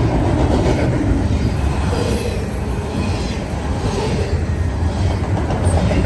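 Double-stack intermodal freight train rolling past at speed: a loud, steady rumble and clatter of the container well cars' steel wheels on the rails.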